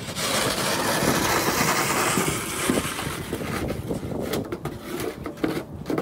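Snow shovel pushed across a snow-covered deck, its blade scraping through the snow: one long scrape for the first few seconds, then shorter scrapes and knocks.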